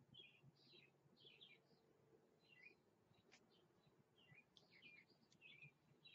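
Near silence, with faint birds chirping over and over in the background and a soft click a little after three seconds in.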